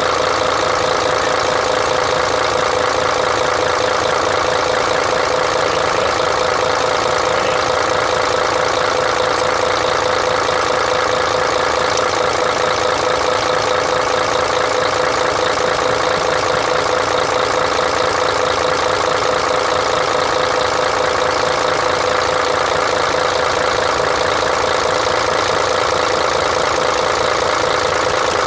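Mercedes-Benz Actros 1844 truck's diesel engine idling steadily, its fuel system freshly bled.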